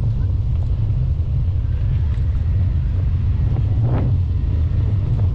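Wind buffeting the microphone of a camera riding on a moving bicycle: a steady low rumble.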